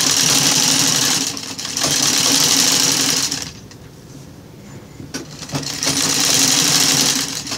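Sewing machine stitching fabric in runs: it eases off briefly about a second and a half in, stops for about a second and a half in the middle, then starts stitching again.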